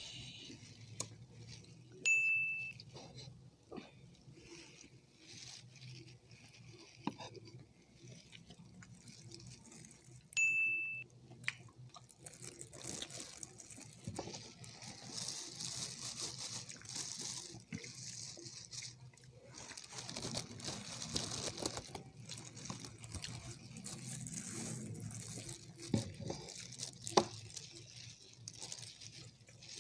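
Eating sounds: chewing chicken wings, the rustle of disposable plastic gloves and small clicks of cutlery on plates. Twice, about two seconds in and again about ten seconds in, a short high ding rings out, louder than the rest.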